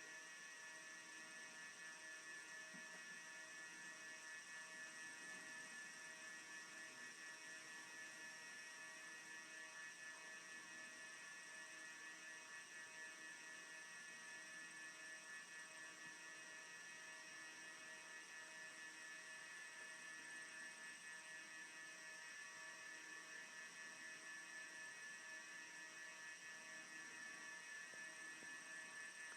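Near silence, with a faint steady electrical hum and several thin, high, constant whining tones over a light hiss.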